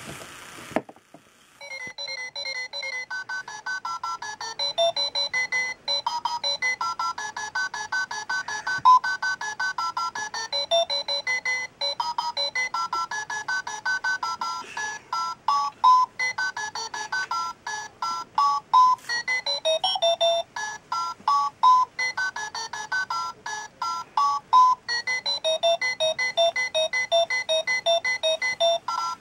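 Battery-powered alarm clock playing a long electronic beeping tune: rapid short beeps stepping up and down in pitch, without a break. The alarm goes off as soon as the batteries are put in, after a short burst of noise at the start.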